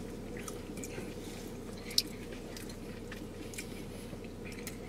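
A person chewing a mouthful of a McDonald's Grand Mac hamburger, with soft wet mouth noises over a steady low hum. A single sharp click comes about two seconds in.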